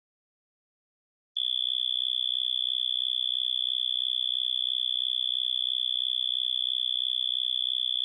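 Synthesized cricket hum from an Absynth 5 additive oscillator: a steady high tone built from a narrow cluster of harmonics, with a faint higher whistle above it, starting about a second and a half in.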